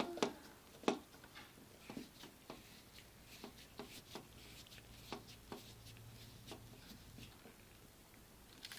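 Scattered faint clicks and scrapes of a screwdriver tightening the wire terminal screws on a wall light switch.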